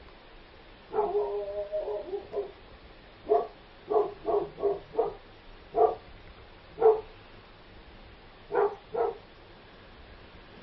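Dog barking: a quick run of yaps about a second in, then about nine short barks, single or in pairs, unevenly spaced.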